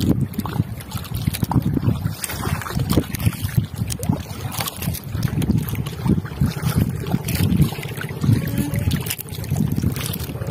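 Wind buffeting the microphone with water lapping against a small fishing boat's hull: an uneven low rumble, with a few light clicks scattered through it.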